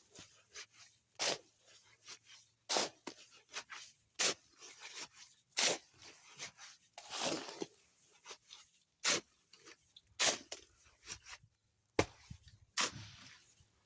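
Gritty scraping and crunching strokes of a shovel working a sand-and-cement mix by hand, one about every second and a half.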